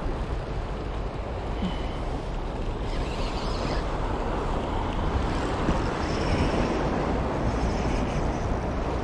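Wind buffeting the microphone with a steady low rumble, over the wash of sea water against the shoreline rocks.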